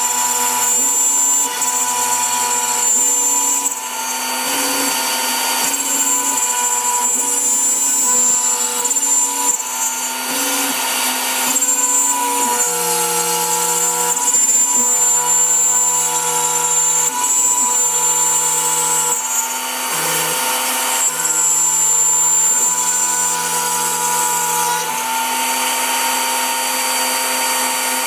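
CNC router running, its spindle whining steadily as a small engraving bit cuts grooves into a wooden sheet. Lower humming tones from the machine jump in pitch every second or so as the bit changes direction along the outlines.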